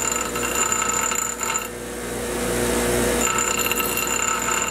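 Bench grinder running while an iron railroad spike is pressed against the grinding wheel to take nicks out of it, giving a high grinding whine over the motor's steady hum. The whine drops away for about a second and a half in the middle as the spike comes off the wheel, then comes back.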